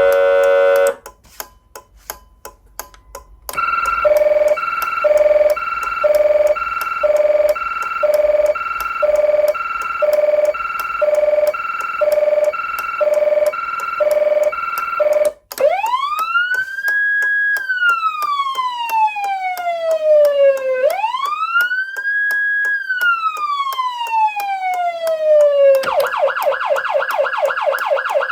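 Federal Signal Unitrol Touchmaster electronic siren amplifier cycling automatically through its tones, with the relay that flashes its indicator lamps clicking steadily throughout. After a short tone cuts off in the first second, there are a few seconds of relay clicking alone; then the siren sounds a tone pulsing about one and a half times a second, switches about halfway through to two slow wail cycles rising and falling in pitch, and near the end changes to a fast yelp.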